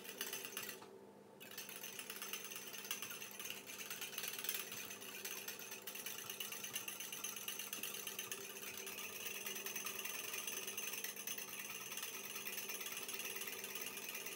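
Small metal hand whisk beating instant coffee, sugar and water in a small ceramic bowl: a rapid, steady clinking and scraping of the wires against the bowl, letting up briefly about a second in.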